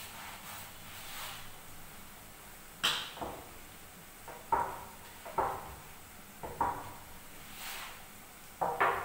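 Hands kneading flour dough in a steel plate: about five sharp knocks and slaps, each with a short ring from the metal plate, with soft rustling between them.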